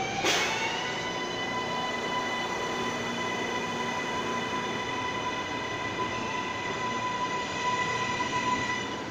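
R143 subway train accelerating out of the station: its electric propulsion whines, rising in pitch about the first second and then holding a steady high tone, over the rumble of wheels on rail. The noise swells near the end as the last car passes.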